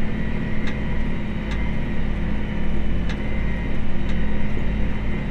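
Tractor engine running steadily with a low drone, with a light tick repeating a little more than once a second.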